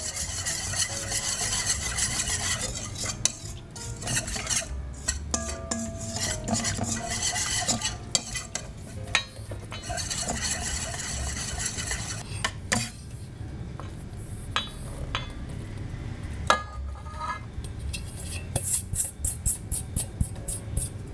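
Wire whisk stirring okonomiyaki batter in a stainless steel bowl, beating flour into the liquid with scraping strokes and now and then a clink of the wires against the metal. Near the end the strokes come quick and even.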